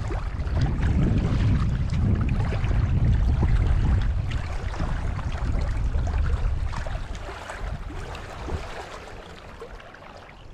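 Wind buffeting the microphone in strong gusts, a heavy low rumble that eases off over the last few seconds.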